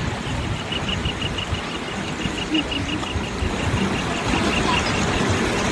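Steady rushing noise of wind buffeting the microphone over flowing river water. A fast series of short high chirps, about six a second, runs through the first three seconds.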